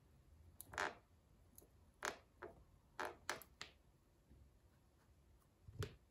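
Wooden pencil cracking and splintering under a stiletto heel's pressure: a series of sharp, separate cracks, about six within the first four seconds, then a heavier crack with a dull knock near the end.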